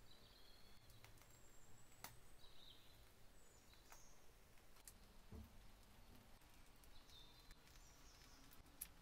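Near silence: quiet room tone with a few faint, short high chirps and a few soft clicks.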